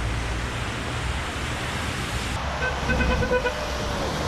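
Heavy rain and traffic on a wet road, with a steady low rumble. About three seconds in, a car horn toots several quick times, then holds briefly.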